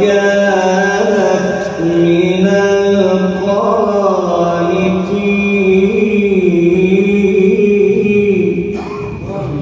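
A man reciting the Quran in Arabic in a slow, melodic chant, holding long ornamented notes that rise and fall, amplified through a microphone. The voice drops away for a breath near the end, then resumes.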